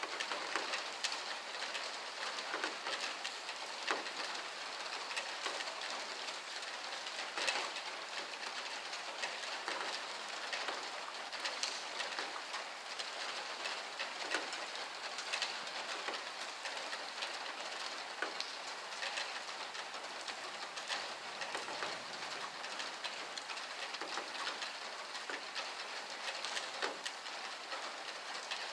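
Heavy storm rain pouring steadily, with many sharp drips and splashes ticking on hard surfaces.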